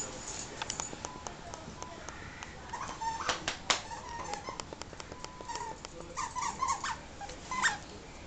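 A dog's claws clicking on a tile floor, then a squeaky fish toy squeaking as the dog chews it, a few quick squeaks at a time, first a little after three seconds in and again from about six seconds in.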